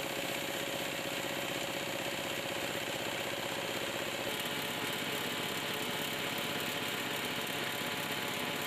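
Power tiller engine driving a chipper-pulverizer, running steadily with a dense mechanical clatter. About four seconds in, a steady whine drops out and a fine, fast high-pitched rattle takes over.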